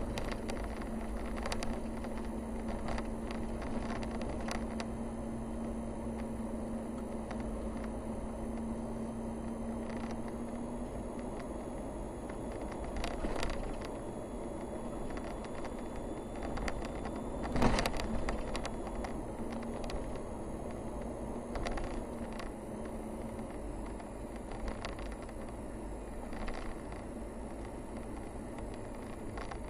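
Car driving along a narrow paved road: steady engine and tyre noise with a low hum for the first ten seconds or so, and scattered clicks and knocks from bumps in the road surface, the loudest a single knock about 18 seconds in.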